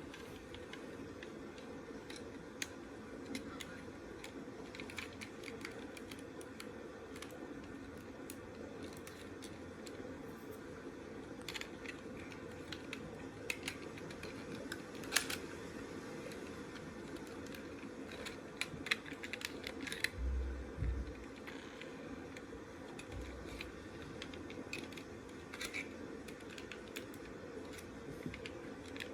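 Scattered light clicks and taps of a plastic toy's parts being handled and worked on, over a steady low hum. There are a few louder clicks and a couple of dull thumps about twenty seconds in.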